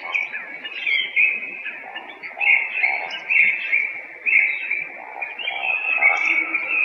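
Eurasian woodcock calling, short calls repeated about once a second, with a few brief high squeaks among them.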